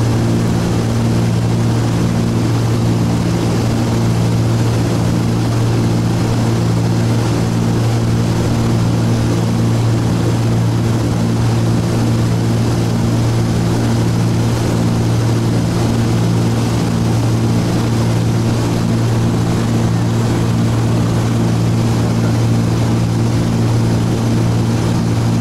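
Cessna T303 Crusader's twin turbocharged six-cylinder piston engines and propellers running steadily, heard inside the cockpit as a loud, even drone. A regular throb pulses through the hum.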